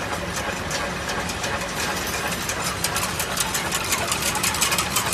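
Automatic chain link fence machine running: a steady motor hum under a fast, continuous clatter of clicks from the wire-forming mechanism, somewhat denser in the second half.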